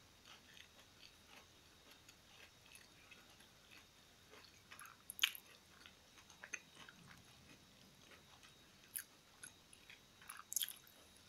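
Faint close chewing of a mouthful of hummus and raw-vegetable tortilla wrap with julienned carrot and alfalfa sprouts: soft irregular crunchy clicks, with a few sharper ones about halfway through and near the end.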